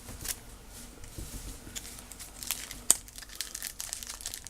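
Trading card pack wrapper crinkling and tearing as it is opened and handled, with irregular sharp crackles, the loudest about three seconds in.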